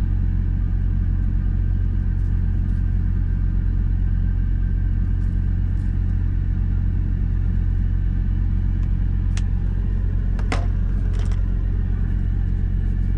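Semi-truck diesel engine idling, a steady low drone heard inside the cab. A few light clicks sound in the second half.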